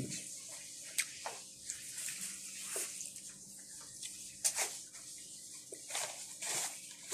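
Close-up eating sounds of shrimp and crab: wet chewing and slurping, with sharp smacks every second or so.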